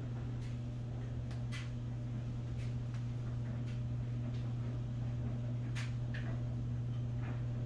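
Cast iron waffle iron heating on a lit gas burner, giving off irregular sharp ticks, about eight of them, over a steady low hum.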